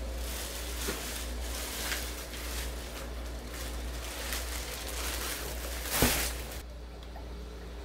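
Fabric and stuffing rustling irregularly as stuffing is pushed into a cover by hand, with a sharper, louder rustle or knock about six seconds in. The rustling cuts off suddenly shortly after, leaving a low steady hum.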